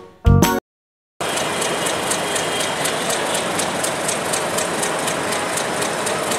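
Short tail of piano intro music, a brief silence, then from about a second in the steady running noise of an approaching Bangladesh Railway diesel locomotive and its passenger coaches, with a light regular ticking about three times a second.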